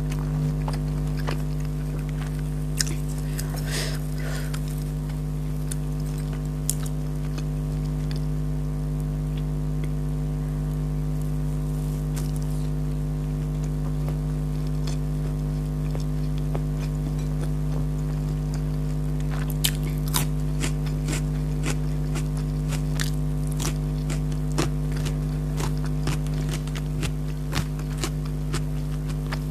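A person eating close to the microphone: scattered crunches and small mouth clicks of chewing, with a brief rustle about four seconds in and the clicks coming thicker in the last third. A steady low hum runs under it all and is the loudest sound.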